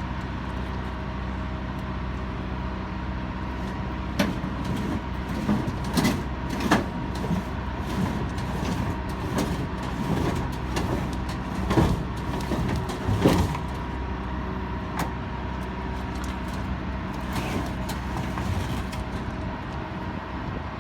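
A vehicle engine idling steadily, with a string of sharp metal clanks and bangs of scrap being handled and dropped during the middle of the stretch.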